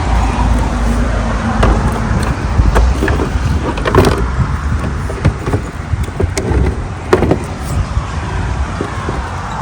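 Irregular knocks and clunks of plastic and metal parts being handled and set together, over a steady low rumble: typical of fitting a roof fan's housing into its opening on a van roof.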